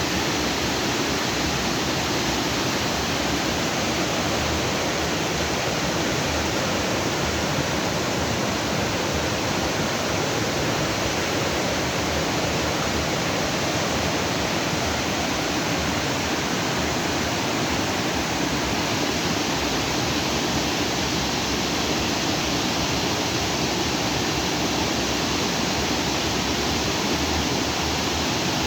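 Stream water rushing and splashing steadily over rocks, an even, unbroken rush.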